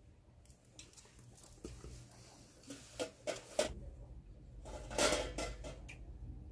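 Cloth rustling as a red skirt is wrapped around the waist and tied, with a few light knocks about three seconds in and a louder swish of fabric about five seconds in.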